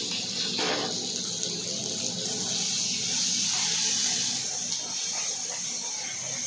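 Pieces of pointed gourd sizzling in hot oil in a kadai, a steady hiss, stirred with a wooden spatula in the second half.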